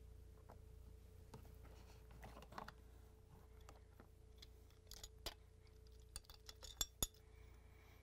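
Faint, scattered clicks and clinks of a metal open-ended wrench and hands against the plastic quick-connect fittings and tubing of a refrigerator water inlet valve as the last water line is released and the valve is handled. The clicks are irregular, with the loudest near the end.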